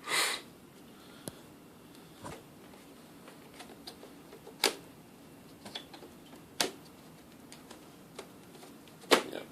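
Sparse plastic clicks and knocks, about half a dozen spaced a second or two apart, as a battery pack is worked against a VHS camcorder's battery mount, trying to line it up and slide it in. A louder rustle of handling comes right at the start.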